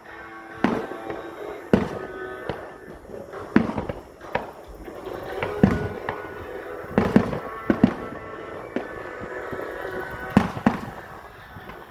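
Aerial fireworks bursting: about a dozen booms at irregular intervals, some in quick pairs, over music playing underneath.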